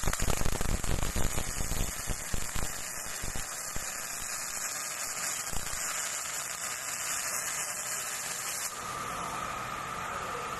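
Automatic MIG welding arc joining a radiator pipe to a transformer tank: it crackles and spatters unevenly at first, then settles into a steady hiss, and cuts off suddenly about two seconds before the end.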